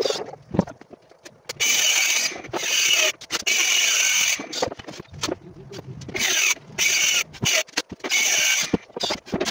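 Cordless drill driving screws into a plywood cabinet: several runs of a high whir, each a second or two long, with knocks and clicks between them.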